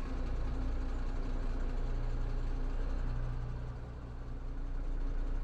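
Husky 2G vehicle's diesel engine idling steadily just after start-up, run for a minute to circulate freshly topped-up coolant.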